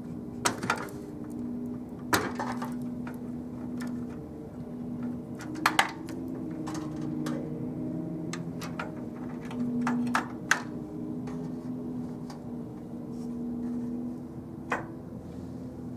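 Scattered sharp plastic clicks and knocks of SATA cable connectors being pulled from their sockets and handled inside a desktop PC case, with several louder clicks spread unevenly through, two of them close together about six seconds in.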